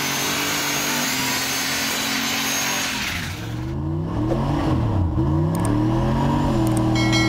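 Drag car engine held at high revs through a burnout, with a loud hiss of spinning tyres. About three seconds in, the hiss stops and the revs fall and climb again several times as the car launches and runs down the strip. A short electronic chime sounds near the end.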